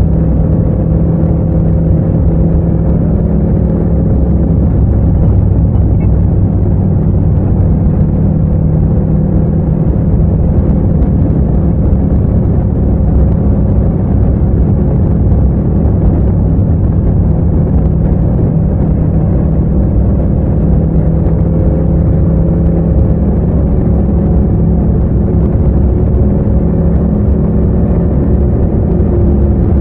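Yamaha MT-07's parallel-twin engine and exhaust running under way at a steady speed: a loud, even, low drone, with engine speed holding level throughout.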